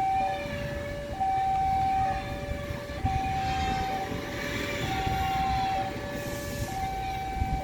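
Railway level-crossing warning alarm sounding a steady two-tone signal, a higher tone and a lower tone alternating about once a second: the crossing is closing for an approaching train. A rushing noise swells and fades in the middle.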